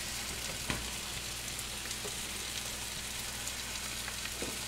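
Chicken pieces frying in oil in a skillet: a steady sizzle with fine crackles, and one light knock just under a second in.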